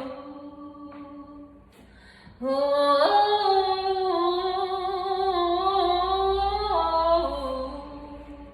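A singer's voice improvising a wordless vocal line: a held note dies away in the first second or so, then after a short pause a long sung vowel steps up and down in pitch before dropping and fading out near the end.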